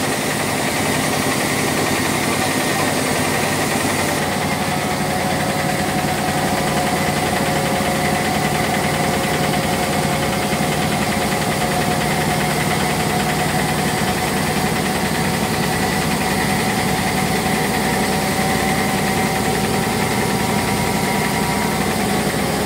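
Motor-driven grinding mill running steadily under load, grinding fried peanuts, dried chilies and garlic, a continuous mechanical hum.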